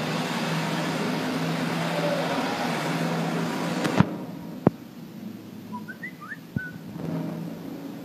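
Steady room noise with a low hum, broken about four seconds in by two sharp clicks, with faint short chirps and another click a couple of seconds later.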